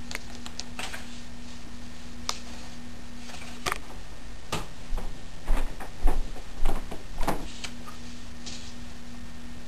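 Room tone with a steady low hum, broken a few seconds in by a run of light clicks and knocks, the loudest few coming close together before it settles back to the hum.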